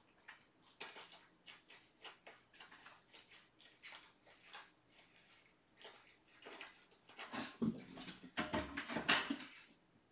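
Kittens moving about on their bedding and toys: soft, irregular rustles and clicks, coming thicker and louder near the end.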